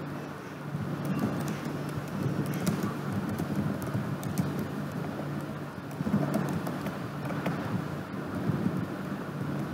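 Steady background hiss with a low hum, with scattered faint clicks of keyboard keys being typed.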